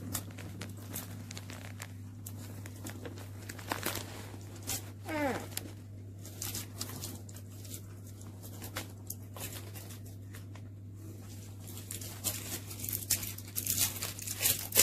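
Plastic wrappers crinkling and small plastic capsule halves and toys clicking as they are handled, in scattered bursts that come thickest near the end, over a steady low hum.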